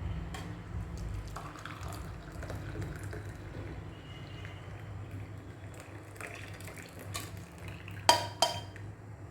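Hot milk tea being strained, liquid pouring from the pan through a tea strainer, over a steady low hum. Two sharp metallic clinks come near the end.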